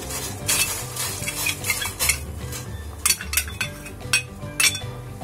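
Steel spoon scraping and clinking against a stainless-steel bowl as pounded spice mixture is knocked out into a pot of boiling water. The sound comes as a run of short, irregular scrapes and taps.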